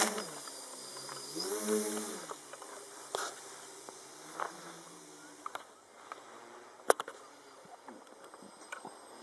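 Tricopter's electric motors briefly spin up and back down about a second and a half in, with a lower hum later, then a few sharp clicks, the loudest about seven seconds in.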